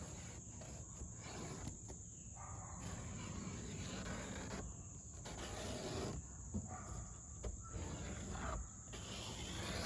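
A steady, thin, high-pitched insect drone outdoors, under faint scraping, rustling and small clicks from hands tracing a marker around a metal frame on a van's painted steel roof.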